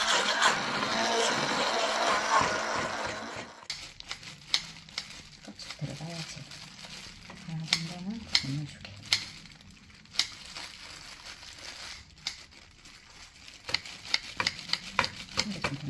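Immersion hand blender running in a pot of tangerine pulp, a dense whirring that stops about three and a half seconds in. Then kitchen scissors snip tangerine peel into the purée, a string of sharp clicks.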